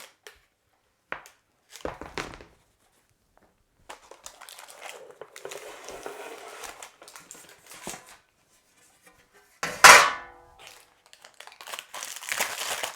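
Handling noises while a baked slab is readied for cutting: soft crinkling and rustling of baking paper, broken by one loud knock with a short metallic ring a little before ten seconds in. The crinkling thickens near the end.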